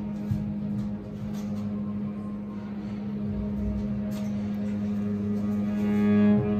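Cello holding one long, low bowed note that swells near the end before the note changes.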